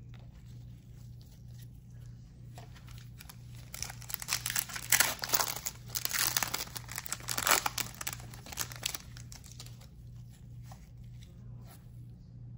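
Foil wrapper of a trading-card pack crinkling and tearing as it is ripped open by hand, a burst of crackling that starts about four seconds in and lasts some five seconds.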